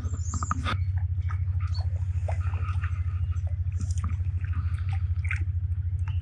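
Hooked brown trout splashing and thrashing at the surface in short irregular sloshes as it is drawn in and handled. Under it runs a steady low, rapidly pulsing hum.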